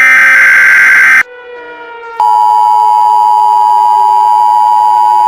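Emergency Alert System tones: a harsh, screechy SAME header data burst lasting just over a second, a second of near-quiet, then the steady two-tone EAS attention signal starting about two seconds in and holding on. A fainter lower tone slowly falls beneath the attention signal.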